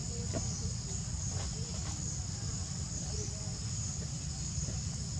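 Steady high-pitched insect chorus, a continuous shrill buzz, over a constant low rumble.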